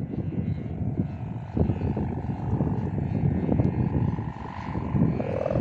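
Gusty wind buffeting the microphone: a heavy, uneven low rumble that swells and dips, with a faint steady tone above it.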